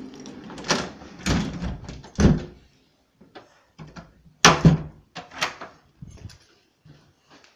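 Apartment door being handled, opened and shut: a run of clicks and knocks, the loudest about four and a half seconds in.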